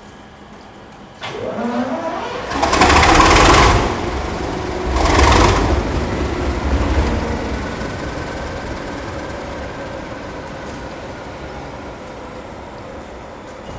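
Class 37 diesel locomotive's English Electric V12 engine being started: it turns over with a rising note about a second in, then fires with two loud blasts, and its sound slowly falls away afterwards.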